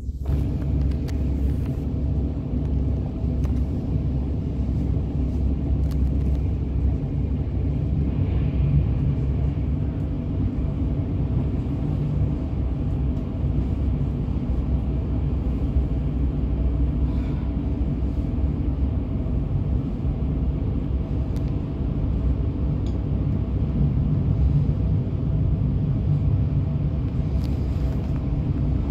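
Passenger train running, a steady low rumble of wheels and running gear with a faint even hum above it, heard from inside the carriage.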